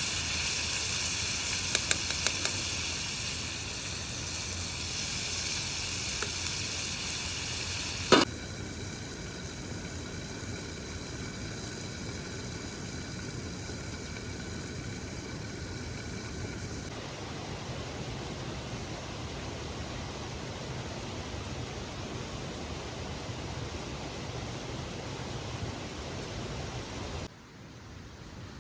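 Vegetable curry sizzling in a pan as it finishes cooking, a steady hiss with a sharp click about eight seconds in.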